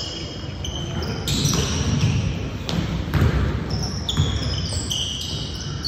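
Basketball game on a gym court: sneakers squeaking repeatedly on the floor and a ball bouncing a few times, with voices in the background.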